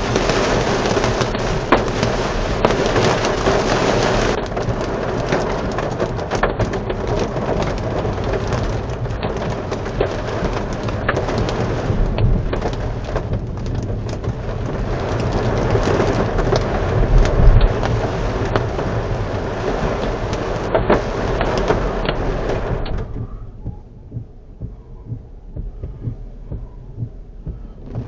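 Heavy rain and hail drumming on a car's roof and windscreen, heard from inside the car, with many sharp hailstone ticks. A low rumble of thunder swells to the loudest point past the middle. About 23 seconds in, the drumming falls away abruptly as the car comes under the shelter of a viaduct.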